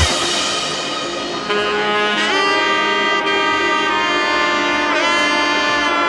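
Background music: the drums drop out at the start, leaving held notes, and a long held lead note slides in about two seconds in and bends in pitch near five seconds.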